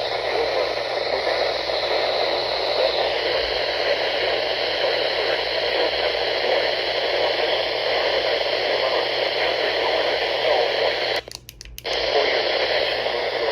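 Steady hiss of radio static from a receiver with no programme on it. It cuts out for under a second about 11 seconds in, with a few clicks, then comes back.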